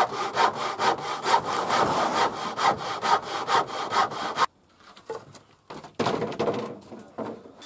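Handsaw cutting through a wooden slat in quick, even back-and-forth strokes, which stop abruptly about four and a half seconds in. A shorter stretch of rubbing and scraping on wood follows about six seconds in.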